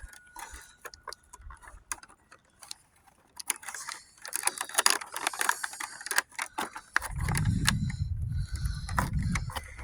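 Cardboard advent calendar door being torn open and a small wrapped toy handled: scattered clicks, crinkles and rustles. Near the end a low rumble of handling noise comes in.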